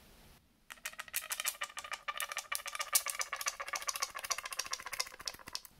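A plastic bendy straw's ridged section being pushed and pulled quickly, giving a fast run of many little clicks, a homemade copy of a cicada's tymbal clicking. The clicks start about a second in and stop just before the end.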